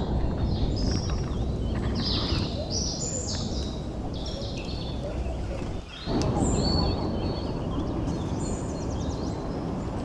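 Forest stream ambience: a steady rushing background with birds chirping in short runs of high calls, a second or so in and again after the middle.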